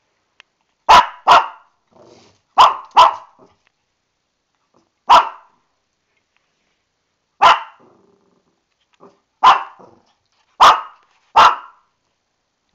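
Shih Tzu puppy barking: nine short, sharp barks, several in quick pairs, with a faint low grumble between some of them. She is barking in protest, which the owner puts down to her being mad about a coming bath.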